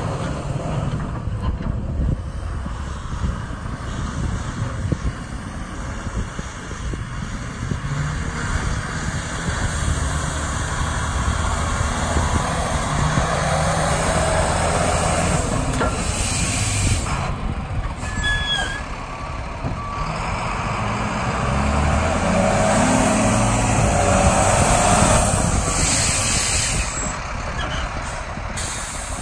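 Volvo A30E articulated dump truck driving and manoeuvring, its diesel engine running steadily with its pitch shifting as it moves. Bursts of air hiss come in twice in the second half.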